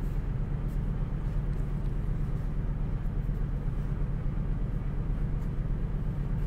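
Steady low background hum, with a few faint light scratches of a pencil drawing on paper.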